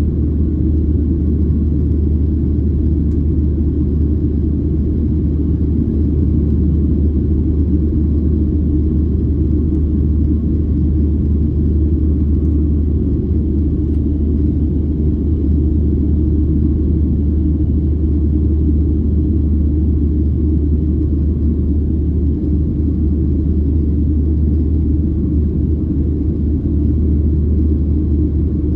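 Steady low roar of a Boeing 737-700's CFM56-7B turbofan engines and rushing air, heard inside the cabin during the climb after takeoff.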